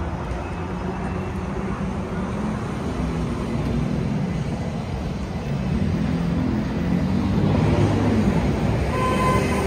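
City street traffic: vehicle engines running under a steady low rumble. A louder vehicle passes about three-quarters of the way in, its pitch falling, and a brief high tone comes near the end.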